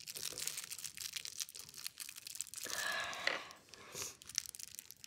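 Small clear plastic wrapping crinkling and crackling as fingers pick and pull at it to free a small part, with a denser rustle a little past halfway.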